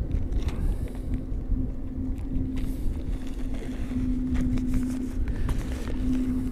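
Plastic bag and paper mailing envelope rustling and crinkling in the hands in short scattered bursts, over a steady low rumble and hum.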